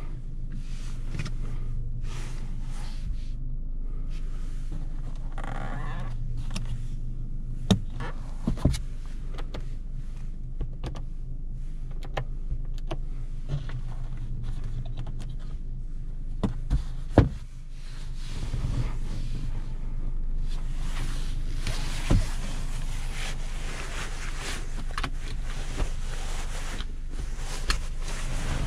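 Mitsubishi Lancer's 1.6-litre 4G18 four-cylinder engine running steadily on the move, with road and tyre noise that grows louder over the last third. A few sharp knocks come along the way, and the sound dips briefly a little past halfway.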